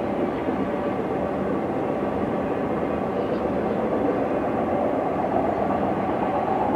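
A freight train's autorack cars rolling past: a steady, unbroken noise of steel wheels on rail.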